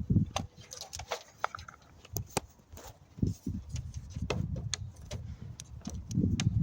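Irregular sharp clicks and light taps of hands handling car wiring, connectors and test tools, with a low rumbling sound about three seconds in and again near the end.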